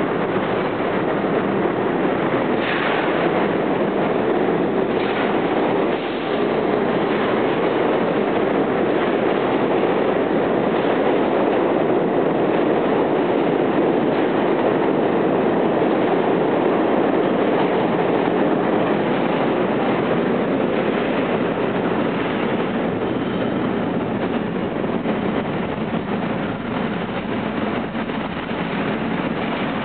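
R40M/R42 subway cars running out of the station on the rails, a steady rumble and clatter with a couple of sharp wheel clacks about three and five seconds in. The sound slowly fades over the last several seconds as the train pulls away into the tunnel.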